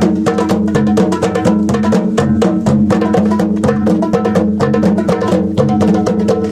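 Percussion music with drums and wood-block-like strikes played at a fast, steady beat over held low tones.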